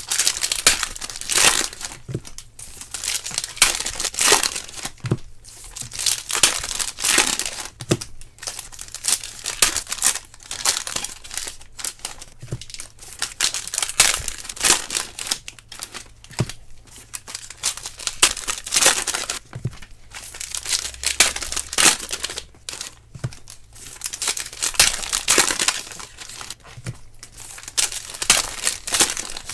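Foil trading-card pack wrappers crinkling and being torn open by hand, in irregular bursts of crackling with short pauses between.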